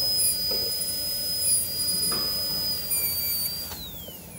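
High-speed dental air-turbine handpiece whining steadily as its bur flattens a plastic typodont abutment tooth to cut a guiding plane. Near the end the whine falls in pitch as the turbine spins down.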